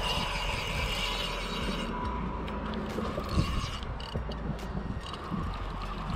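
Spinning fishing reel being cranked by hand: a steady gear whine while the handle turns. The whine stops about two seconds in and comes back in shorter stretches with scattered clicks.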